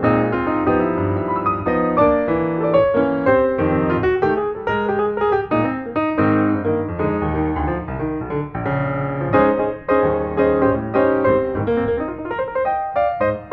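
Background piano music: a melody of quick, separate notes over lower chords.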